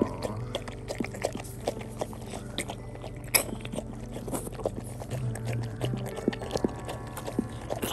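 Husky mother licking her newborn puppy: irregular wet licking and smacking clicks over a low steady hum.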